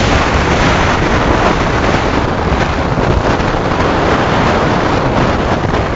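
Wind rushing across a phone microphone at the open window of a moving van, over tyre and road noise: a loud, steady rush.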